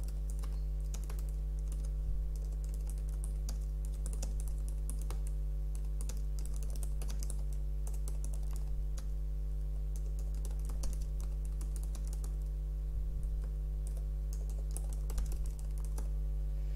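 Typing on a computer keyboard: a continuous run of irregular key clicks as a short message is typed, over a steady low electrical hum.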